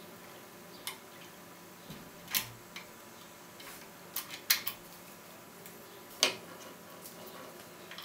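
Steel lock pick and tension wrench clicking and tapping against a Thirard Federal euro cylinder clamped in a vise: a few scattered sharp metallic clicks, with a cluster just past halfway and another sharp one about three-quarters of the way in.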